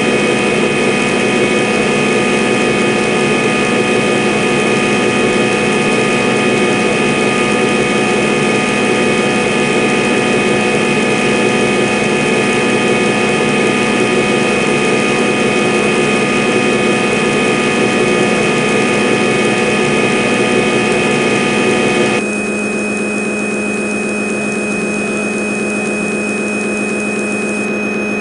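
CNC lathe running a boring program, a steady machine whine with several constant tones over a hum. About 22 seconds in the sound drops abruptly and loses its higher part, leaving a quieter steady hum.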